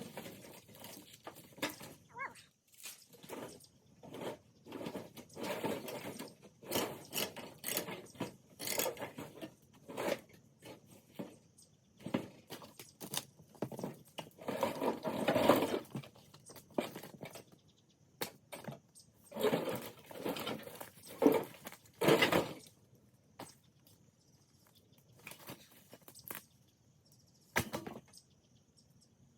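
Irregular crunching and rustling of dry brush and leaves being pushed through and pulled at, with scattered sharp clicks and knocks.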